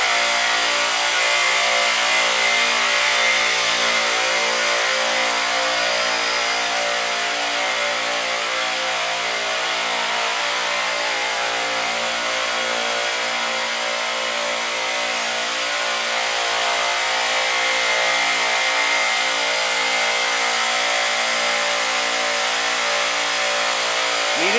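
Supermarket refrigeration compressors running in the machine room: a steady mechanical drone with a faint high whine.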